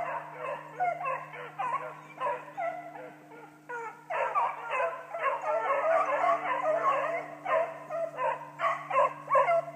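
A pack of beagles baying and yelping, many voices overlapping as they run a scent trail through the woods, the hound chase of rabbit hunting. The chorus thins for a moment a few seconds in, swells again, then stops abruptly at the end, with a steady low hum underneath.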